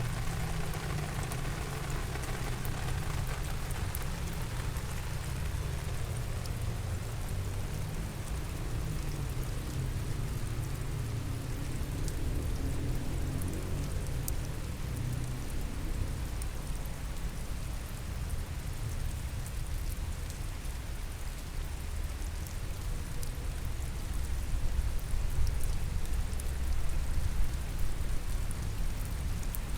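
Steady rain falling, with scattered drops ticking and a steady low rumble underneath.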